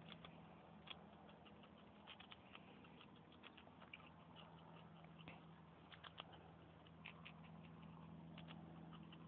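Faint, irregular small clicks and scratches from a squirrel, heard over a steady low hum.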